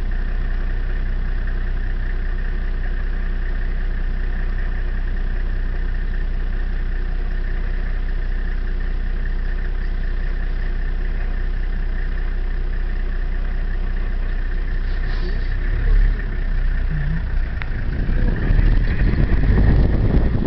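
Vehicle engine idling steadily, a low hum with a faint thin whine above it. Near the end a louder, rougher rumble joins in.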